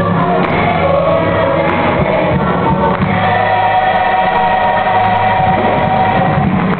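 Youth gospel choir singing, then holding one long chord from about three seconds in that cuts off near the end.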